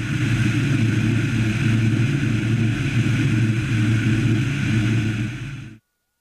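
Single-engine light aircraft in flight: a steady piston engine and propeller running with loud rushing airflow. It cuts off suddenly near the end.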